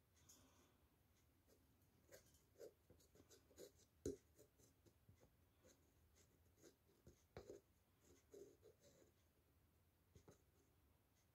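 Near silence with faint, scattered scratchy clicks and taps: a soldering iron's tip working against an old oil can's metal spout. The sharpest taps come about four seconds in and again about seven seconds in.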